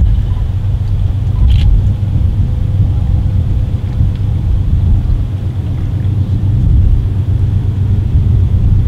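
Wind buffeting an outdoor microphone: a steady, wavering low rumble, with one short click about a second and a half in.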